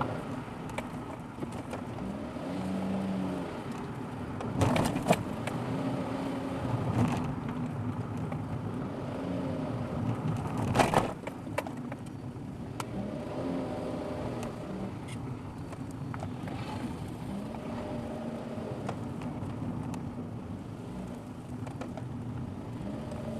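A car driving, recorded by its dashcam: a steady engine and road noise, the engine pitch rising and falling as it goes. A few sharp knocks or rattles come about five seconds in and again near eleven seconds.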